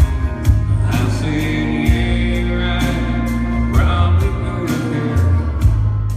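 Live country band playing: drums hitting a steady beat about twice a second under guitars, with a long held note in the middle.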